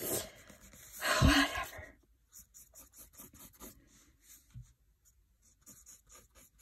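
Pencil scratching on lined paper in short, quick sketching strokes, a few a second. About a second in comes a brief, louder breathy vocal sound with a short rise in pitch.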